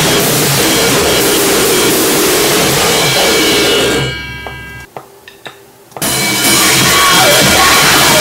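Harsh noisecore music: a dense, loud wall of distorted noise. About four seconds in it fades away into a near-silent gap broken by a few clicks, then crashes back in suddenly about two seconds later.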